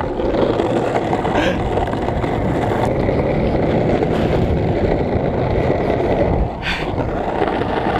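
Longboard wheels rolling fast over asphalt, a steady rumble mixed with wind buffeting the microphone.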